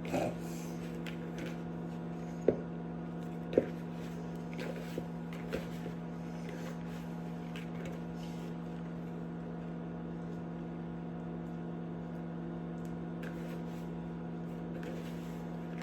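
A steady electrical hum from a kitchen appliance, with two sharp knocks a few seconds in and a few fainter clicks after.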